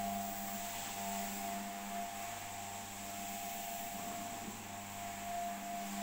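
Electric single-disc floor scrubbing machine running steadily as it scrubs a wet marble floor: a steady motor hum over the hiss of the spinning pad.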